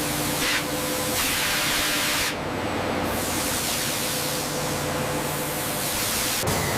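Hissing in bursts, like air or spray being released, over a steady machine hum. A long hiss starts about two and a half seconds in and cuts off sharply near the end.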